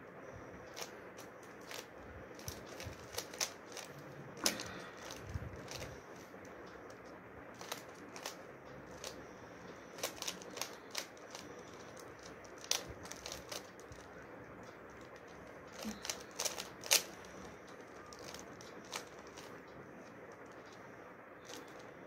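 3x3 Rubik's cube being twisted by hand: irregular plastic clicks of its layers turning, now single, now in quick runs of several turns.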